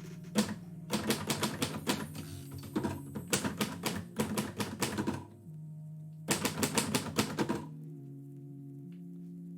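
Typewriter keys struck in quick runs of keystrokes, three main runs about a second or two long with short pauses between them.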